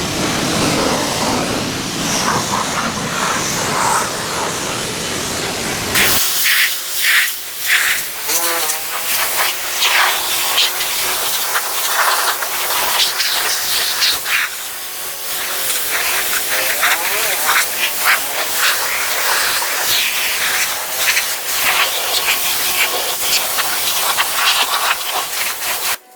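Steady hissing of a cleaning spray jet. About six seconds in the low rumble drops away abruptly, leaving a thinner, high hiss with spattering crackles.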